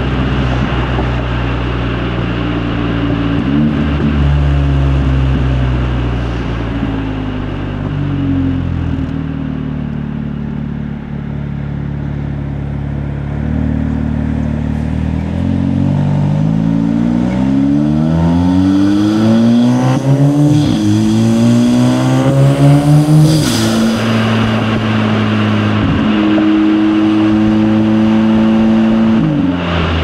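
Stage 2 tuned Audi S3 8V's turbocharged 2.0-litre four-cylinder, fitted with a cold air intake and downpipe, running loud under way. A little past halfway it accelerates hard: the note climbs, drops at a gear change, climbs again and drops at a second change, then settles to a steady cruise.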